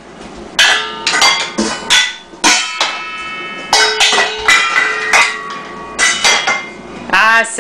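Wooden spoons beating on upturned stainless steel mixing bowls, a colander and pots used as a toy drum kit: about a dozen uneven strikes, each leaving a short metallic ring.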